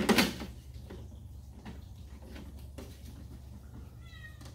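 Hollow plastic clunk as a filter media tray is set down into a canister aquarium filter, then a few light clicks and knocks of plastic parts, over a steady low hum. A short high squeak about four seconds in.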